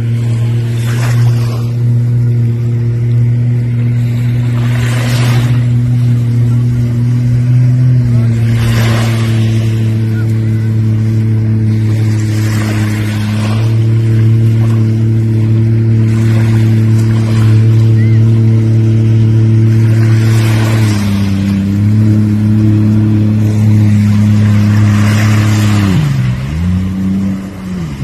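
Watercraft engine running at a steady cruising speed, its pitch stepping slightly a few times. Near the end the pitch drops and comes back up as the throttle is eased and opened again. Whooshing noise comes and goes every few seconds.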